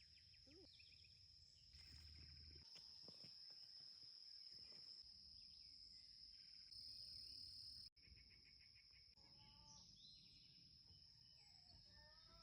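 Faint rural morning ambience: a steady high-pitched insect drone throughout, with chickens clucking in short calls near the end.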